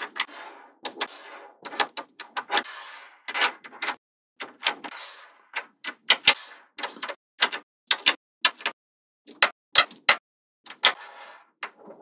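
Small neodymium magnetic balls snapping together with sharp clicks, one every half second or so, with short rattles of balls rolling and shifting against each other between the clicks.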